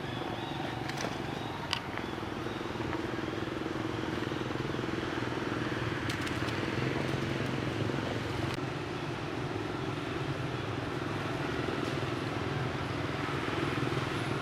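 A motor vehicle's engine runs steadily as a low hum under a broad noise, swelling a little partway through. A few faint clicks come in the first two seconds.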